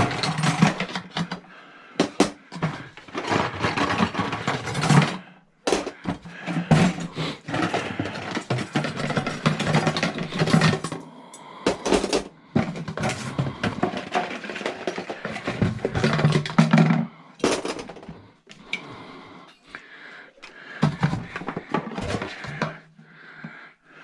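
Scrap copper tubing clattering and scraping, with many irregular clinks and knocks as the pieces are handled and piled onto a scale for weighing.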